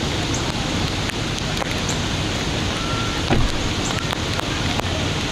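Steady rushing noise of heavy rain and fast-flowing floodwater, with wind on the microphone. A brief thump comes about three and a half seconds in.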